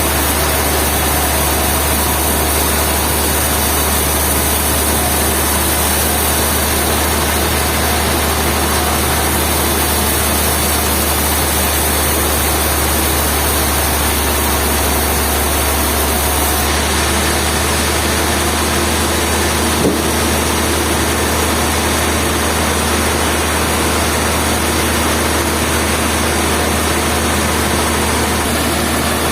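Steady, loud industrial din of sawmill machinery running, with a constant low hum beneath a wide hiss. A single small knock comes about two-thirds of the way through.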